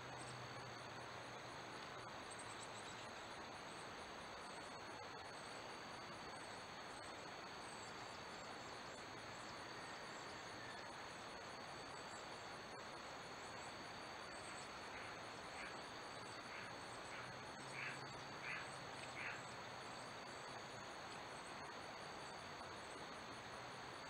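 Faint, steady insect chorus: a continuous high trill with rapid light ticking above it, over the hiss of a trail camera's microphone. About fifteen seconds in, a bird gives a few short calls.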